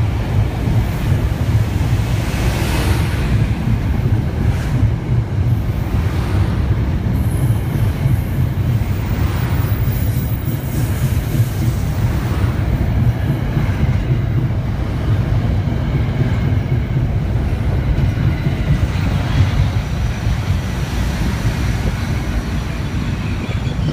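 Metro-North M2-series electric multiple-unit cars rolling out of the station past the platform: a steady low rumble of steel wheels on rail, with faint high wheel squeal near the start.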